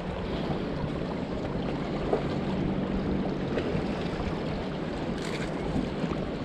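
Sea surf washing on a rocky shore with wind on the microphone, under a steady low hum.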